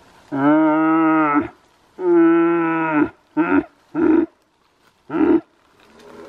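Red deer stag roaring in the rut: two long, deep roars about a second each, followed by three short grunts.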